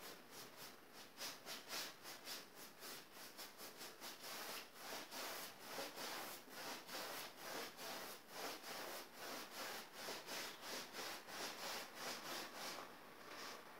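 Wide flat paintbrush rubbing back and forth on a stretched canvas, blending the sky colours in quick rhythmic strokes, roughly three a second, that stop shortly before the end.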